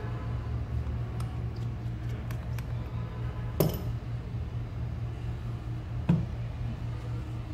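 Light clicks of a precision screwdriver working the tiny screws at the bottom edge of an iPhone 6s, with one sharp metallic clink about halfway through. Near the end there is a dull thud as the screwdriver and phone are laid on the silicone repair mat. A steady low hum runs underneath.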